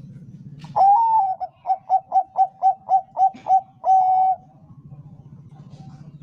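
Bangkok-type zebra dove (perkutut) singing one phrase of its song: a long opening coo, a quick run of about nine short clipped notes at roughly four a second, and a longer closing coo.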